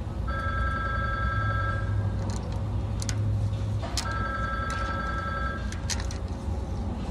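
A phone ringing twice, each ring a steady electronic tone about a second and a half long, with a few sharp metallic clinks of a hand tool against the wheel hub between and after the rings. A steady low hum runs underneath.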